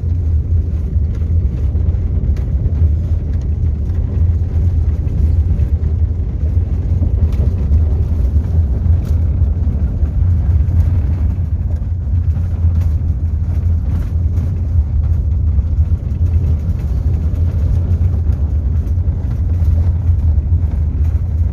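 Car driving on a gravel road, heard from inside the cabin: a steady low tyre and road rumble with scattered small ticks from the gravel.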